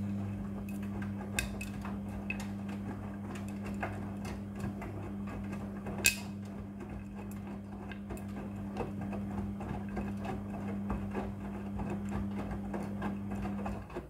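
Midea front-loading washing machine in its wash cycle: the drum motor hums steadily while the wet load tumbles, with many small clicks and knocks of the clothes against the drum and one sharper click about six seconds in. The motor stops near the end.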